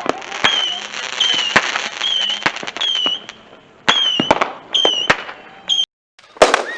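Fireworks going off: sharp bangs in quick succession, many of them with a short, high whistle. Near the end a brief silence breaks it, followed by a louder burst.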